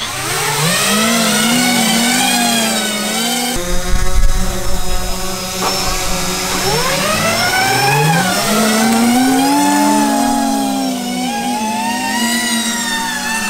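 Several electric multicopter motors and propellers on a large RC VTOL jet whining as they spin up, their pitch rising and falling together as the craft lifts off into a hover. About three and a half seconds in the sound changes abruptly and wind rumbles on the microphone.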